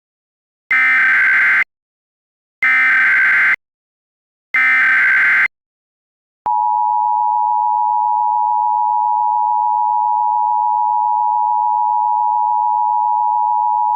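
Emergency Alert System SAME header: three bursts, each about a second long, of rapid warbling digital data tones. About halfway through, the steady two-tone EAS attention signal begins and holds unchanged.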